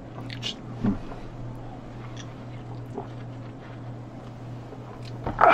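A man drinking from a can: quiet swallows and small can-handling sounds over a steady low hum, with a louder noisy sound right at the end.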